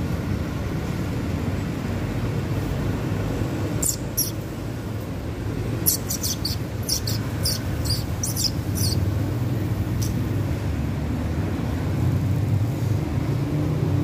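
Steady low rumble of vehicles. Over it, a small bird chirps in short high notes: twice about four seconds in, then a quick run of about seven.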